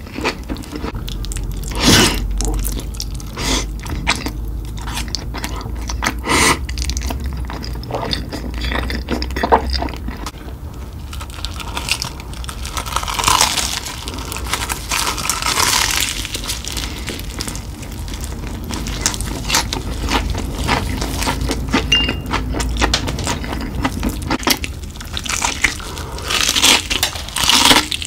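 Close-up crunching and chewing of crispy fried chicken: irregular crackly bites into the breaded crust and chewing. Louder crunching comes about two seconds in, again around the middle, and near the end.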